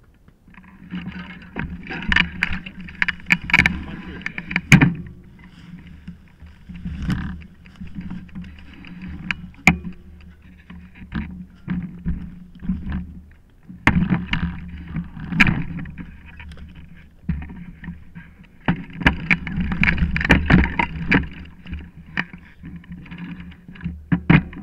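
Mountain bike ridden down a rough dirt trail, picked up close on the bike itself: a continuous clattering rattle of the bike over the ground, with sharp knocks over bumps. It starts about a second in, with rougher, louder stretches.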